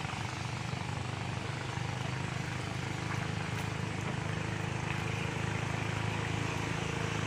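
Small motorboat engine running with a steady low drone that grows slightly louder.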